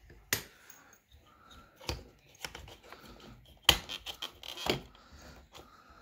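Sharp plastic clicks and knocks, about five spread across a few seconds with the loudest about two-thirds through, from hands handling the plastic rear-seat backrest frame of a BMW X3 (E83) and working a cable free from a plastic clip.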